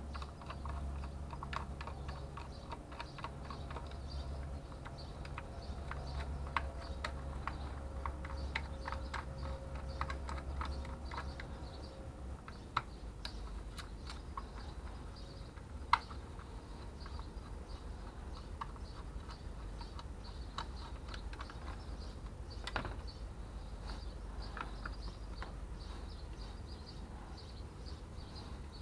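Irregular small clicks and taps of a screwdriver and small parts against the plastic motor housing of a hand-held circular saw as it is taken apart, with one sharper click about sixteen seconds in. A low steady hum sits underneath and fades about twelve seconds in.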